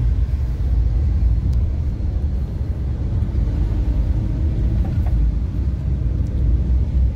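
Steady low rumble of a car heard from inside its cabin: engine and road noise of a cab.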